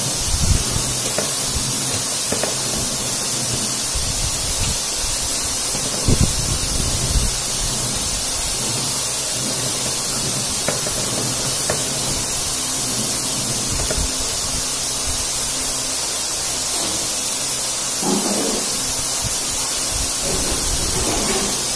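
Steady hiss with a few soft thumps and faint chewing and handling sounds from a man eating with his hands.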